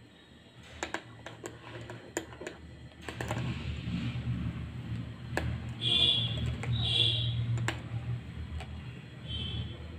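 Metal spoon clicking and tapping against ceramic coffee mugs while spooning whipped coffee foam, in scattered single clicks. Two brief high squeaks come about six and seven seconds in, over a low hum that starts about three seconds in.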